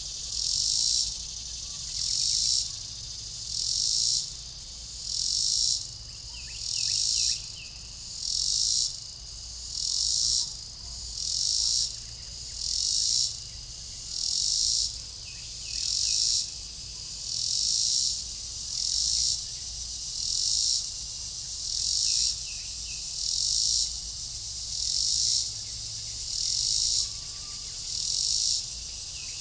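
Chorus of night insects at dusk: a dense, high-pitched shrilling that swells and fades in a steady rhythm, about once every second and a half. Faint short downward chirps come in now and then.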